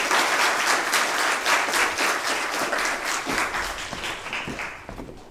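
Audience applauding, the clapping dying away over the last two seconds.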